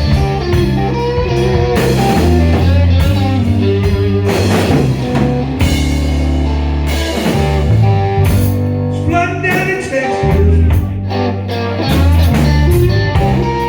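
Live blues band: a Fender Stratocaster electric guitar plays lead lines over bass guitar and a drum kit.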